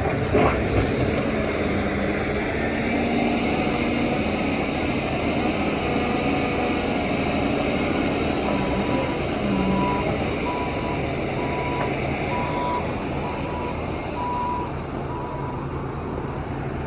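Heavy diesel earthmoving machinery running steadily, with a few clanks in the first second. From about halfway a reversing alarm beeps about once a second as a machine backs up.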